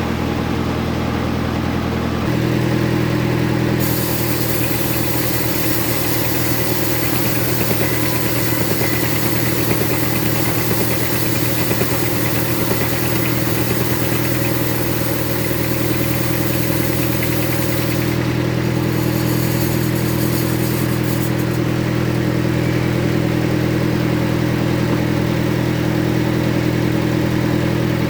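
Bandsaw sawmill running steadily while ripping jengkol wood, its drive motor giving a constant low hum. A high hiss of the blade in the wood comes in about four seconds in and drops away around eighteen seconds.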